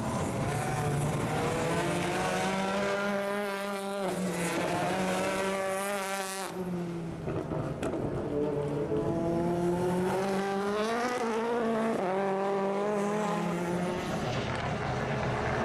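Two WTCC touring cars with turbocharged 1.6-litre four-cylinder engines accelerating past one after the other, each engine climbing in pitch through the gears with short breaks at the upshifts. A hiss of wet-tyre spray rises as the first car goes by.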